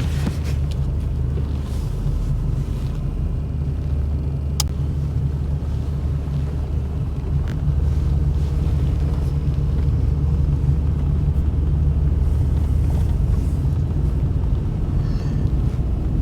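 Pickup truck driving: a steady low rumble of engine and road noise that rises slightly about halfway through.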